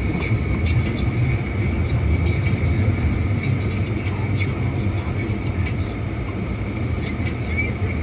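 Steady low vehicle rumble, with a thin, steady high-pitched tone over it.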